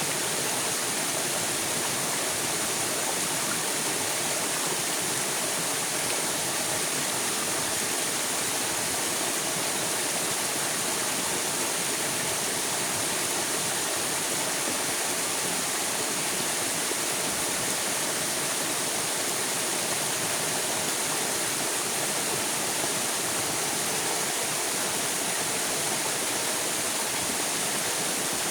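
River water flowing and rushing steadily, an even hiss with no breaks.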